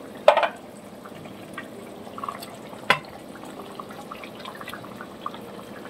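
Thin egg-curry gravy bubbling at a boil in a kadai as raw eggs poach in it. There is a brief splash just after the start and a sharp knock about three seconds in.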